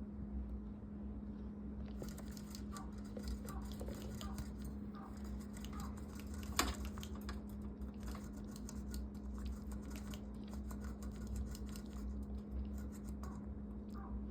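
Light, rapid scratching and clicking with one sharper click near the middle, over a steady low hum.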